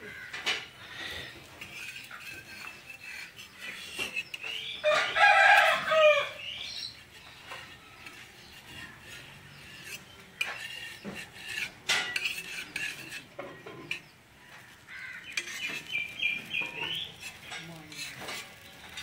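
A rooster crows once, loudly, for about a second and a half about five seconds in, with short chirping calls before and after. Scattered metal clinks of a spatula on the iron tawa.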